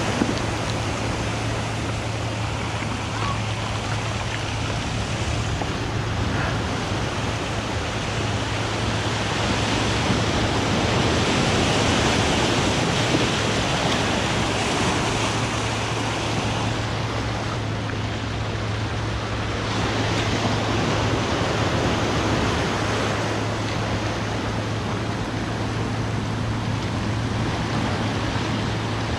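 Ocean surf washing on the shore: a steady rushing noise that swells louder a little over a third of the way in and again about two-thirds through.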